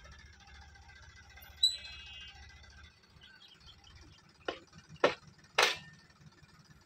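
Faint low hum of a tractor engine running. About a second and a half in comes a sharp clink with a brief ringing tone, and near the end three sharp knocks, roughly half a second apart.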